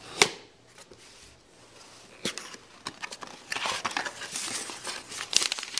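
A cardboard shipping box being opened by hand: a sharp click, then scattered taps and scrapes, then a stretch of crinkling and tearing from about three and a half seconds in.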